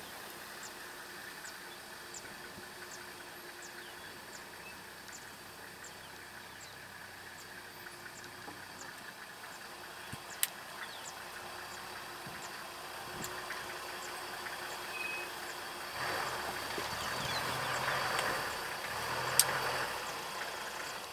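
Vehicle engine idling with a steady hum, growing louder and rougher in the last few seconds. A faint high tick repeats about twice a second, and there are a couple of sharp clicks.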